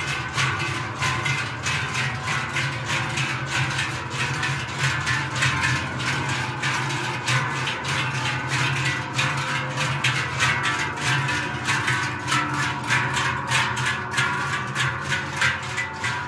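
A procession of large Swiss cowbells (Treicheln) swung as the bearers march, making a dense, rhythmic clanging with a steady low ringing underneath.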